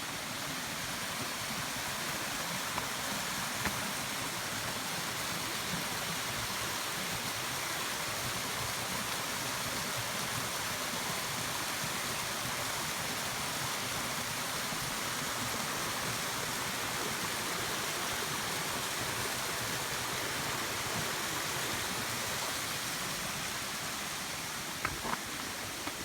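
Waterfall on a forest stream: a steady rush of falling water, with a few light clicks near the end.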